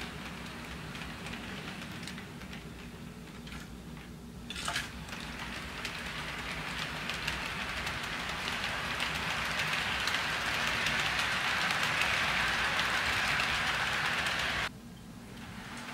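HO scale model freight cars rolling along sectional track: a steady rattling clatter of small metal wheels on the rails over a low hum, growing louder as the train passes and dropping off abruptly near the end.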